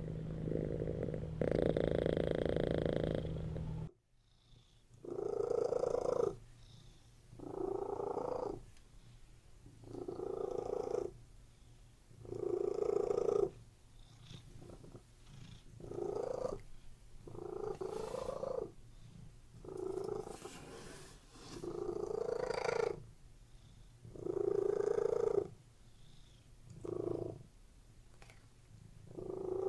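Domestic cat purring close to the microphone. It is a steady, continuous purr at first. After a sudden cut about four seconds in, the purr comes in breath-by-breath pulses roughly every two seconds.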